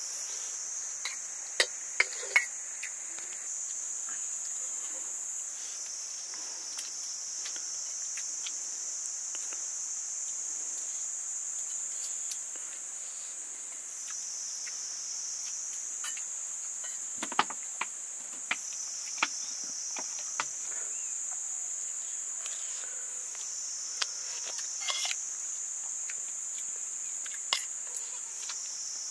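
Steady high-pitched insect chorus, with scattered sharp knocks: a few near the start, the strongest about halfway through, and more later.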